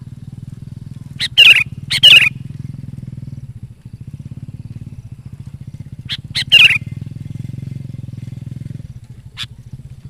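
Sooty-headed bulbul singing its lively song in short bubbly phrases: two loud phrases about a second in, another around six seconds, and a short note near the end. A steady low hum runs underneath and cuts off a second before the end.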